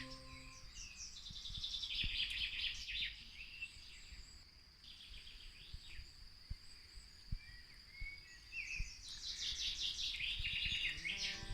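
Small songbirds chirping and twittering in quick rapid runs, one spell in the first few seconds and a busier one near the end, with quieter gaps between.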